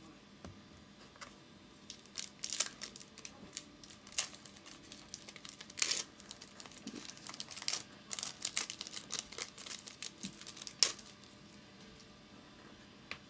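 Crinkling and tearing of a football trading card pack's wrapper as it is torn open and handled, a dense run of sharp crackles lasting several seconds.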